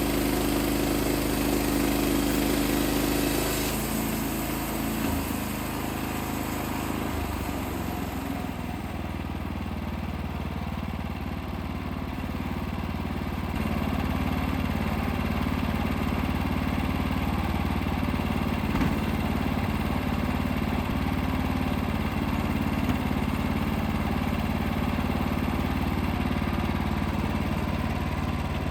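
Wood-Mizer LX55 portable sawmill's 14 hp engine running at high speed, then slowing down about four seconds in and settling into a steady lower running speed, picking up slightly about halfway through.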